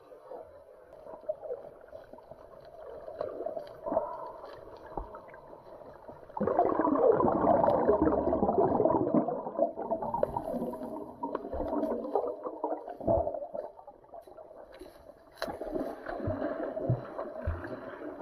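Muffled underwater sound of a snorkeler diving and swimming close to the camera: water churning and swirling, much louder for a few seconds about a third of the way in and again near the end, with scattered faint clicks and knocks.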